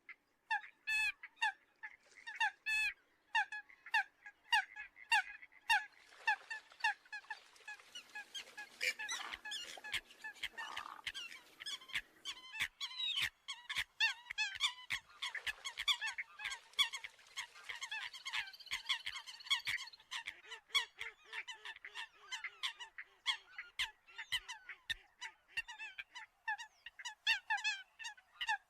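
Eurasian coots giving short, honking calls over and over, about two to three a second, with several calls overlapping from about six seconds in.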